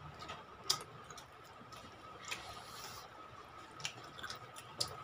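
Quiet eating sounds: hands squishing and mixing rice with chicken curry and mouths chewing, with a few short sharp clicks and smacks, the loudest just under a second in.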